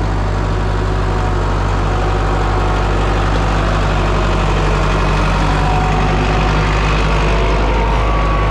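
Diesel engine of an International Hydro hydrostatic-drive loader tractor running steadily at a constant pitch as the tractor drives slowly over rough ground.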